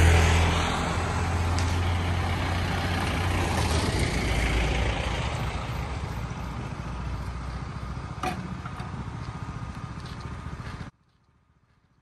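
A motor vehicle passing and driving off: a low engine hum with road noise, loudest at the start and fading slowly. The sound cuts off abruptly near the end.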